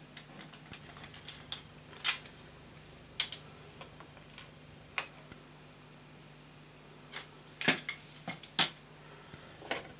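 Irregular sharp clicks and taps of hard 3D-printed plastic parts being handled and fitted together, as a buffer beam is put onto a model locomotive chassis, with a cluster of clicks near the end. A faint steady low hum runs underneath.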